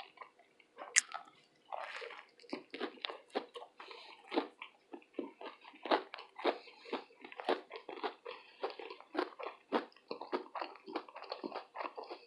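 Close-up mouth sounds of a person biting and chewing a meal of a fish sandwich, fries and tater tots, with a steady run of chews about two to three a second and a sharp loud bite about a second in.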